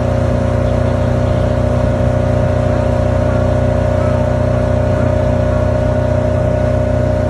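Outboard motor of a small fishing boat running at a steady speed, with an even, unchanging engine note.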